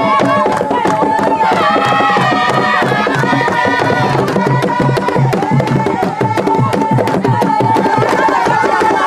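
Babongo initiation-ceremony drumming, fast and continuous, with a group of voices chanting over it. The drumming and chanting call the forest spirits to bless the new initiate.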